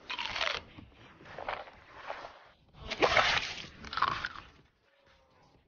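A person biting into and chewing food up close, with a run of crackly crunching bites that stops about four and a half seconds in.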